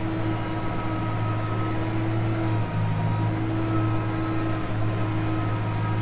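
Tractor engine running steadily under load while pulling and driving a Gehl 1475 round baler that is picking up hay, heard from inside the cab as a continuous drone.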